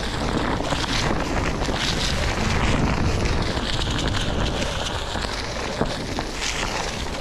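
Wind buffeting the microphone of a rider moving on a Onewheel GT electric board, with a steady low rumble and a few brief hissing surges.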